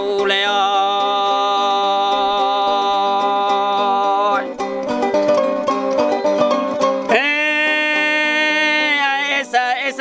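Sasando gong, a bamboo tube zither in a palm-leaf resonator, being plucked to accompany a man's chanted singing in long held notes. About four and a half seconds in, the voice drops out and the plucked strings are heard alone for a couple of seconds before the next long sung note.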